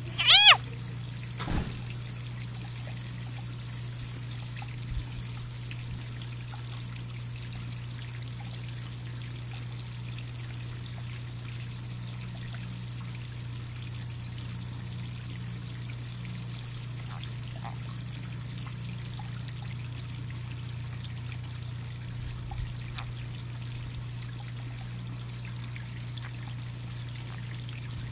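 Leopard frog giving one short, high-pitched distress scream about half a second in, as a ribbon snake swallows it. A steady low hum and a high hiss run underneath, and the hiss stops about two-thirds of the way through.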